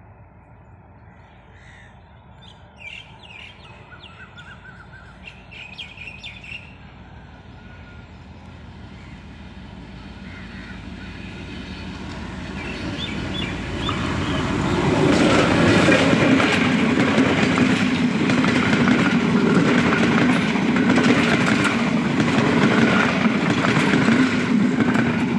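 Diesel-hauled passenger train approaching, with birds chirping at first; its rumble grows over about fifteen seconds until the locomotive and carriages pass close by, loud, with the wheels clattering over the rail joints.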